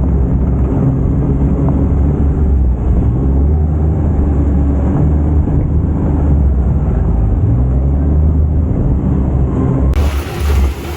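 UTV engine running as the vehicle drives along, a loud low drone whose pitch drifts up and down with the throttle.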